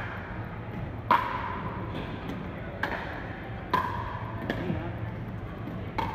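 Pickleball paddles striking a hard plastic pickleball during a rally: four sharp, ringing pops spaced irregularly about a second apart, echoing in a large hall.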